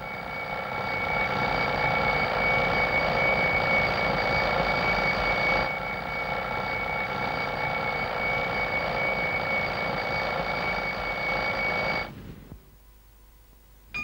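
Mechanical alarm clock bell ringing steadily without a break, a little quieter from about six seconds in, then cutting off about twelve seconds in.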